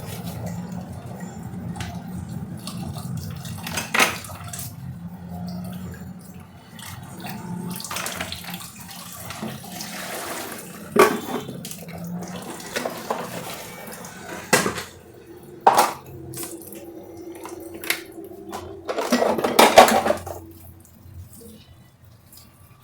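Dishes and glasses being washed by hand at a kitchen sink: the tap runs in spells while glass and crockery clink sharply every few seconds. The longest, loudest run of tap water comes near the end.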